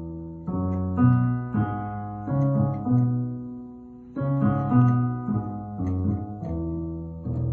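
Solo piano playing a children's piece depicting peacocks: struck chords and short melodic figures in the low and middle register, the first phrase fading about four seconds in before a fresh chord starts it again.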